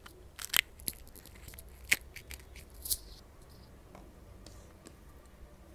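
Crisp, hollow fried puri (golgappa shell) crunching: several sharp crackles over the first three seconds, then quiet.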